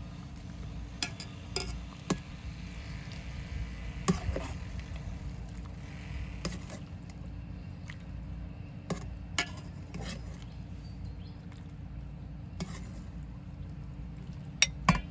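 Spoons and serving utensils clinking against bowls and pots as food is scooped out and served: about a dozen sharp, scattered clinks over a steady low hum.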